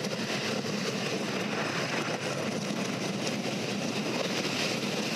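Gravity Group wooden roller coaster train running along its track, heard from on board as a steady noise of wheels and track.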